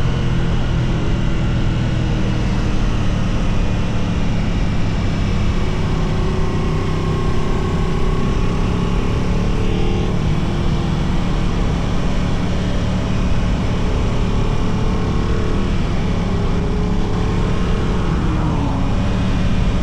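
Aprilia RS660 motorcycle's parallel-twin engine running hard through bends, its pitch climbing under throttle and dropping sharply three times as the rider shifts or rolls off, with wind rushing over the microphone.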